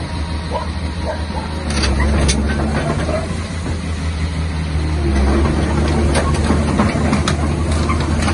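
Diesel engine of a Terex TC225 tracked excavator idling steadily, a low hum, with a few light clicks and knocks over it.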